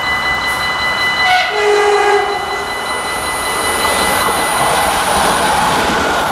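SNCB AM08 Desiro electric multiple unit sounding a short horn blast about a second in, then running past on the rails with a rising rumble and a thin high whine. A steady high tone heard at the start stops as the horn sounds.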